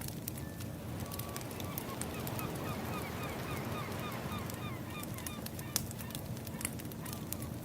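Ambient nature track: firewood crackling in sharp pops over a steady wash of waves, with a flock of birds giving a quick run of short, repeated honking calls, about three a second, from about one to six seconds in.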